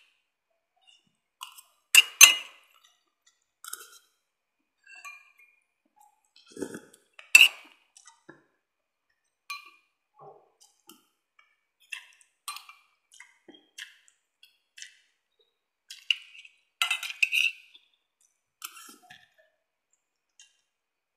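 Spoon and fork clinking and scraping against a plate of rice and a soup bowl during eating: scattered sharp clinks, louder ones about two, seven and seventeen seconds in.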